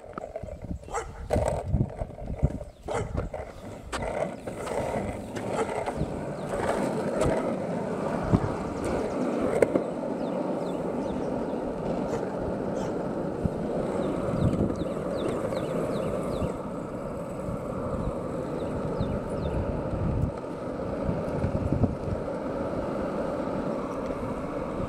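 Longboard wheels rolling over rough asphalt: a steady, gritty rumble, with a few sharp knocks in the first couple of seconds.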